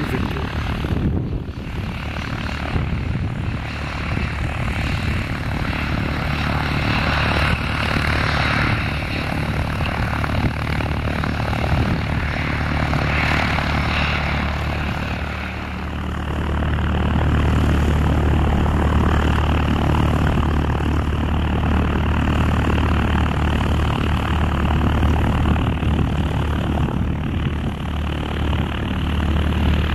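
Bombardier CRJ regional jet's rear-mounted turbofans running with a steady rushing whoosh as it rolls on the runway. About halfway through it gives way to a small single-engine propeller plane's engine at takeoff power, a steady, strong low drone.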